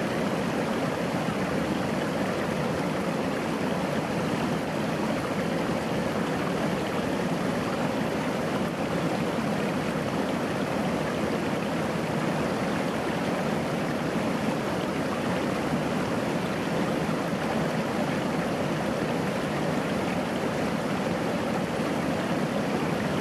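Small stream babbling as it spills over a low rock ledge into a shallow pool: a steady, even rush of water.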